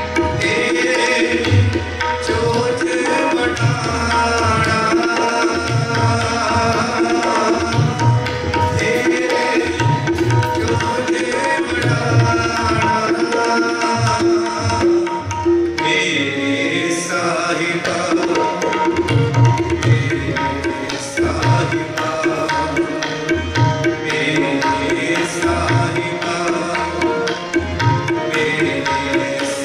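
Harmoniums holding steady reed chords while a tabla keeps a steady rhythm of deep bass-drum strokes and sharper treble strokes: kirtan accompaniment.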